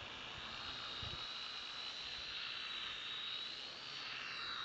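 Small RC quadcopter's electric motors and propellers running with a steady high-pitched whine, its pitch dipping and gliding briefly near the end as the throttle changes.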